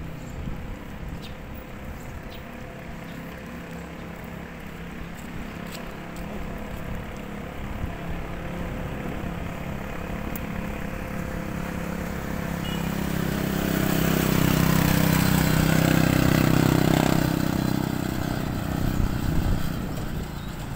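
A motor vehicle's engine running as it travels along a road, a steady low hum with road noise. The hum swells louder for a few seconds past the middle, then eases off.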